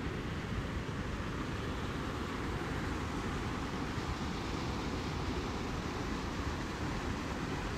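Cave spring outflow rushing down a narrow stone channel as white water: a steady, unbroken rush of water, the spring running strong.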